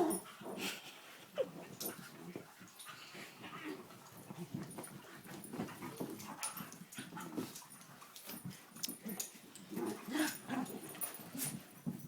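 Dogs playing together, making short, soft low vocal sounds amid scattered scuffling and clicking noises.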